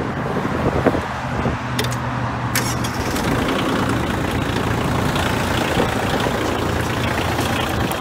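Kioti compact tractor's diesel engine running at a steady idle, with a few light clicks in the first few seconds.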